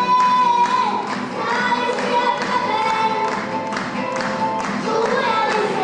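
A young girl singing into a handheld microphone, amplified, over backing music with a steady beat; she holds a long note at the start.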